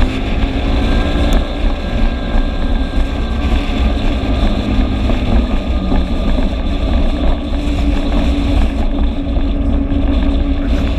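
Vespa scooter engine running at steady road speed, its tone drifting slightly, under heavy wind rumble on the microphone.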